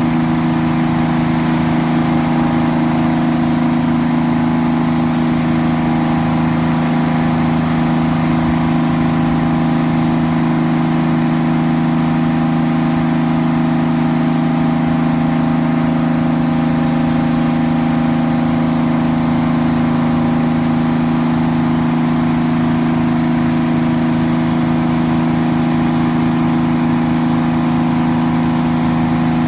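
Grove TMS300 truck crane's engine running at a steady speed while the crane is worked, a constant hum with a steady pitch and no revving up or down.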